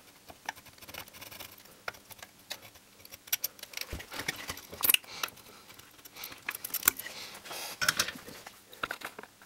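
A capacitor being desoldered from a TV circuit board with a soldering iron: an irregular run of small clicks, taps and scratches as the iron tip works the solder pads and the component is worked loose.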